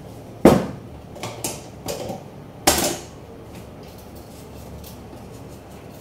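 Kitchen items being handled and set down, clattering. A sharp knock comes about half a second in, then a few lighter clatters, then another loud knock near the middle, followed by a few faint ticks.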